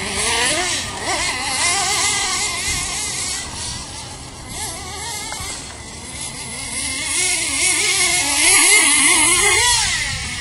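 Team Associated radio-controlled car's motor revving up and down as it is driven over a dirt track, its pitch rising and falling again and again; loudest about eight to nine seconds in.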